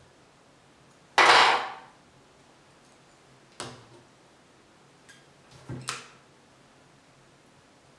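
Handling noises at a fly-tying vise: a loud scraping burst about a second in that fades over half a second, then a sharp click and, near the end, two quick clicks close together.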